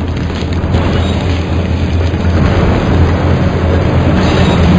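A loud, low rumbling drone that slowly grows louder: a dramatic sound bed building up to a fire scene.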